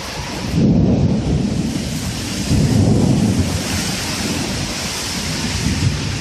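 Heavy rain falling steadily, with low rolls of thunder rumbling about half a second in and again at about two and a half seconds, and a weaker rumble near the end.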